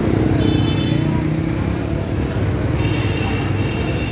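Motor scooter engines running in street traffic: a steady low engine hum, with a thin high whine briefly about half a second in and again from about three seconds on.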